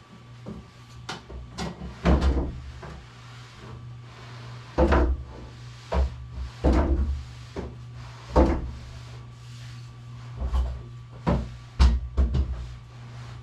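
Irregular wooden knocks and bumps, a dozen or so spread unevenly, as furniture and items are moved and set down on a wood-top workbench, over a steady low hum.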